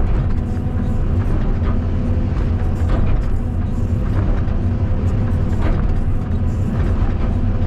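Caterpillar 320D2 hydraulic excavator's diesel engine running steadily under working load.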